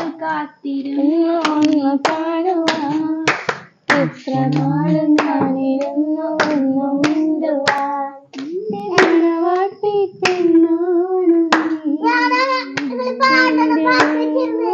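A woman singing in long held notes while hands clap along, roughly once or twice a second.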